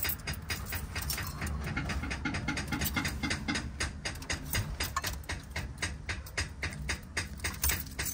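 Rapid, continuous clicking from the starter circuit of a 1972 Impala's 468 big block as the key is held to start, over a low steady hum; the engine does not crank, which the owner puts down to a dead starter.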